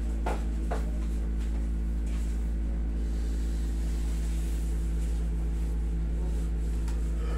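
Steady low drone of a running window-type air conditioner, with a couple of soft knocks in the first second.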